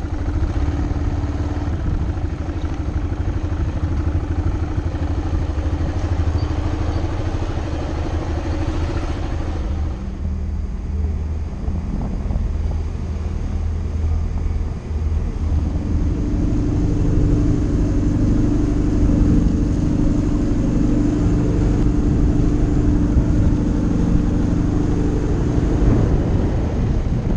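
Motorbike engine running steadily as it is ridden. For a few seconds in the middle the sound shifts to a different, lower steady engine drone, and after that a steady engine hum runs on.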